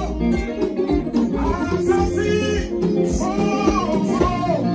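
Live slow highlife gospel band: a man singing a melody into a microphone over electric guitar, keyboard and drums.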